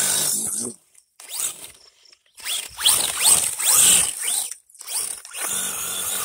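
1/16 RC monster truck's 5900kv brushless motor revving in four throttle bursts, with a high whine that rises sharply in pitch. The tyres spin and spray sand, adding a hiss.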